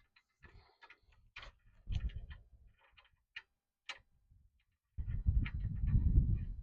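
Light metal clicks and clinks as a washer and spindle nut are fitted by hand onto a trailer axle spindle, with a longer, rougher scraping and rubbing noise near the end.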